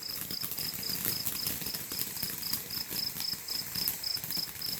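Cricket chirping steadily, a short pulsed high chirp repeated a little under four times a second.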